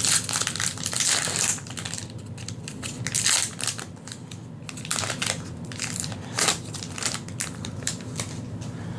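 Foil wrapper of a Magic: The Gathering booster pack crinkling as it is opened, densest in the first second and a half and again around three seconds in, then lighter crinkles and clicks.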